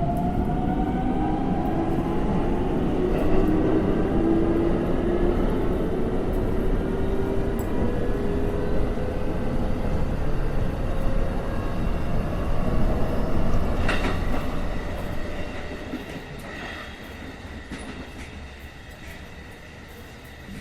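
Train sound effect: an electric train's motor whine rising in pitch as the train gathers speed, over a steady rumble from the carriage. About two-thirds through there is a sharp click, and then the sound grows quieter toward the end.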